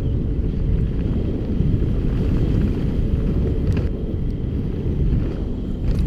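Wind buffeting a helmet-mounted GoPro's microphone and tyre rumble as a Radon Jab full-suspension mountain bike rolls fast down a dirt trail, with a couple of sharp knocks from the bike over rough ground.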